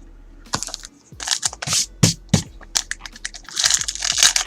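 Trading cards being handled: a run of short rustles, crinkles and clicks as cards slide and flick against each other.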